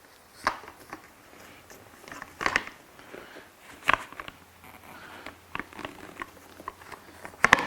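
Seat parts being handled and fitted by hand: scattered sharp clicks, knocks and small rattles of plastic and metal pieces a second or two apart, with the loudest cluster of clicks near the end.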